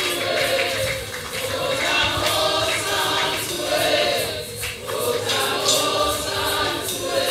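Gospel worship group singing together in harmony through microphones, with long held notes that slide from one pitch to the next.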